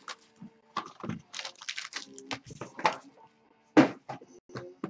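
Cardboard trading-card boxes and foil packs being handled on a desk: an irregular run of short clicks, taps and crinkles, with one sharper knock near the end.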